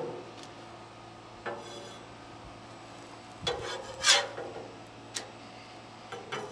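A metal spatula scraping and tapping on a flat-top griddle in a few short strokes, the strongest about four seconds in, over a faint steady hum.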